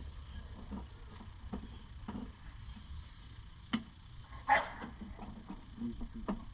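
Light knocks and clicks of a truck headlight assembly being handled and worked into place. There is one sharp click a little past halfway, and a brief scraping rattle just after it, which is the loudest sound.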